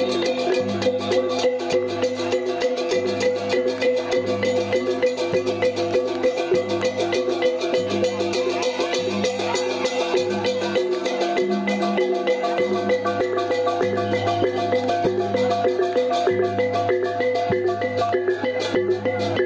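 Balinese gamelan music: metal-keyed metallophones ringing steadily over a regular low gong beat.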